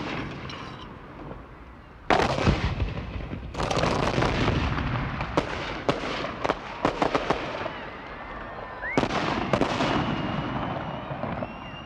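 Rifle shots at an outdoor firing range: a few heavy reports that echo and die away, then a quick string of sharper cracks about four to seven seconds in, and two more shots near the end.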